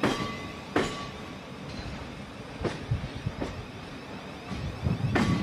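Thameslink Class 700 electric multiple unit rolling slowly past, its wheels knocking over the track joints in pairs of clacks about every two and a half seconds over a steady rumble.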